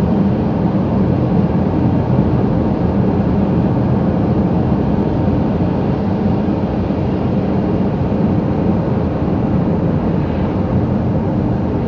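Steady road noise inside a moving car's cabin: tyres and engine at an even cruising speed.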